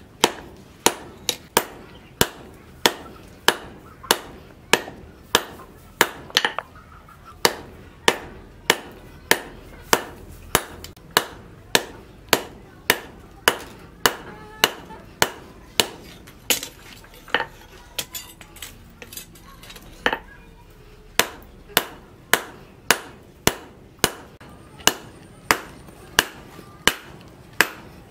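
Hand hammer striking red-hot steel on a steel anvil block, forging a steel bar into a wood-carving chisel: steady metal-on-metal blows about two a second, each with a short ring, with a brief break about two-thirds of the way through.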